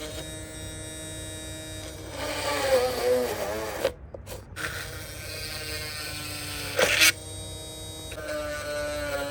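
Small electric motor of a homemade mini drill whirring, its pitch wavering up and down at times. It cuts out briefly about four seconds in, with a sharp click just before seven seconds.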